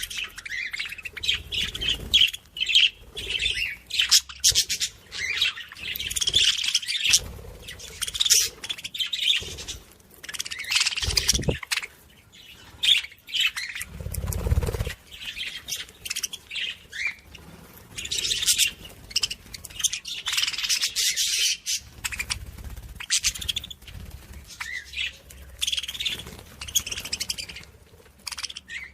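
Small birds chirping and twittering continuously in quick, overlapping calls, with a couple of brief low thuds about 11 and 14 seconds in.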